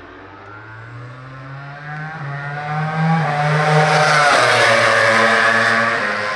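MotoGP racing motorcycle's four-cylinder engine at high revs, approaching down the straight and passing. It grows louder, drops in pitch as it goes by about four seconds in, then fades.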